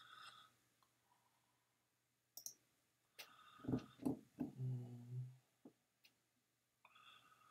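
Computer mouse clicks as quiz answers are selected, with a cluster of louder low thumps and knocks a little past the middle and short ringing tones at the start and near the end.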